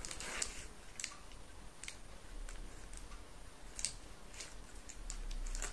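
Irregular faint ticks and light rustles of thin copper wire being twisted into a knot by hand over tape on a block of floral foam.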